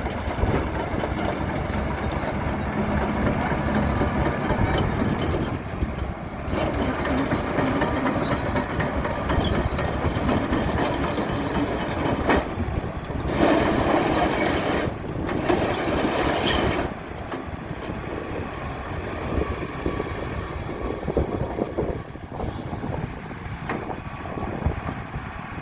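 2006 Hitachi ZX280LCN-3 crawler excavator running and moving, its diesel engine and hydraulics working while the steel tracks clank and squeal. It gets louder for a few seconds around the middle, then eases off.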